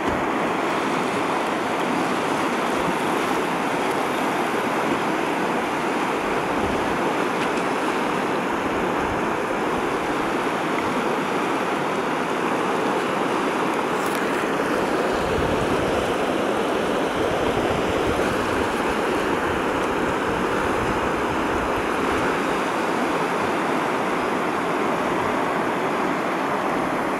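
Whitewater river rapid rushing steadily, an unbroken wash of tumbling water.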